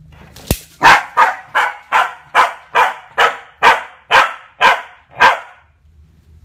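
Welsh corgi puppy barking in a quick run of about eleven sharp barks, two to three a second, stopping about a second before the end. One sharp knock comes just before the first bark.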